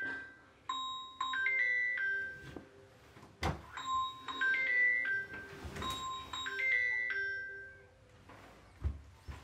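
Mobile phone ringtone: a short tune of high pitched notes repeating every couple of seconds. Two dull thumps, about a third of the way in and near the end.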